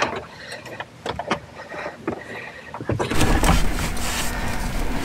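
A hard plastic van engine cover (doghouse) being worked loose and slid out, with scattered light plastic clicks and knocks. About three seconds in it turns louder, a steady handling noise with a low rumble.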